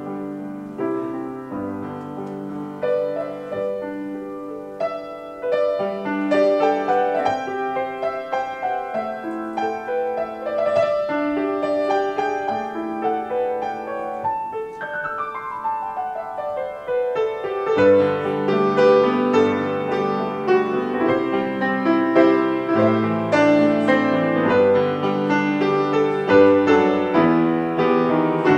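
Grand piano played solo, an instrumental piece of flowing notes. About halfway through comes a long downward run, after which the playing grows fuller and louder.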